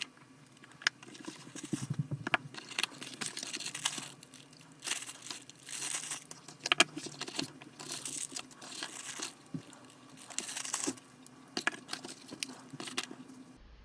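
Packaging being handled: irregular plastic crinkling and rustling with several sharp clicks and taps.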